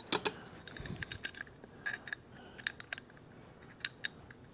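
Metal parts of a 1921 Stutz shock absorber being fitted together by hand: a scattering of light, irregular clicks and clinks.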